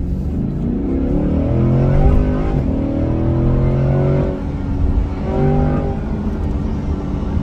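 2021 Corvette C8 Stingray's 6.2-litre V8 pulling hard under acceleration, heard from inside the cabin. The engine note climbs in pitch, holds, drops away a little after four seconds in, then climbs again briefly about a second later.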